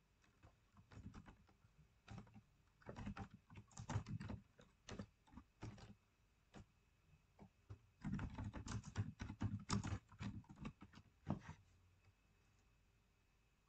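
Typing on a computer keyboard: two runs of quick keystrokes with a pause of about two seconds between them.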